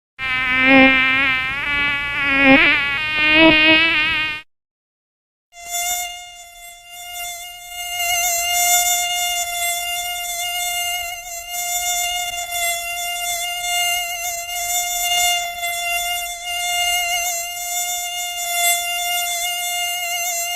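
Mosquito wingbeat whine. For about four seconds it buzzes with a wavering pitch and one quick swoop up and down. It cuts out for about a second, then returns as a steady, high, even whine.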